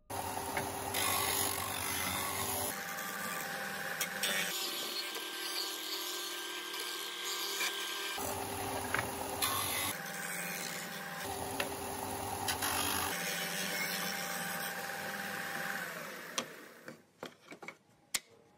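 Ryobi combination belt and disc sander running with a steady motor hum while a hardwood board's corners are sanded round against it. Near the end the motor winds down, and a few sharp knocks follow.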